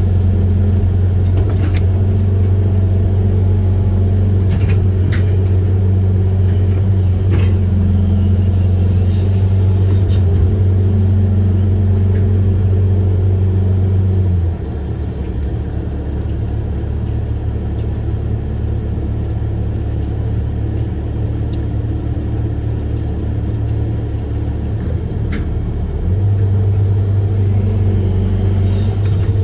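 Amphibious excavator's diesel engine running with a steady low drone. It drops to a lower, quieter note about halfway through and comes back up near the end.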